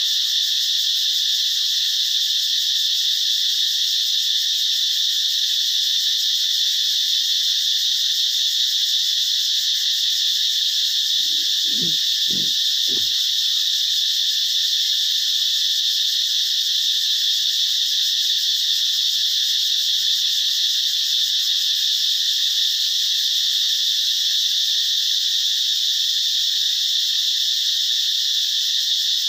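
A loud, steady, high-pitched chorus of calling animals that does not let up. About twelve seconds in, four short low sounds come in quick succession, roughly half a second apart.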